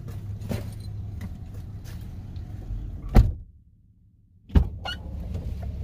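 Steady low rumble of a car on the road, heard from inside. About three seconds in it is cut by a sharp click and a second of silence, then another sharp click, and the rumble resumes.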